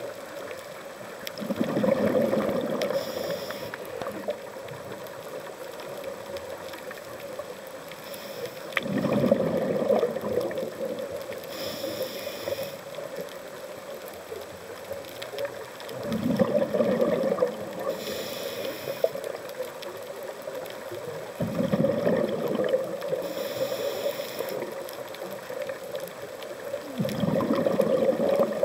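Scuba diver breathing through a regulator underwater: five bubbling rumbles of exhaled air, about every five to six seconds, each followed by a short hiss of the next inhale, over a steady hum.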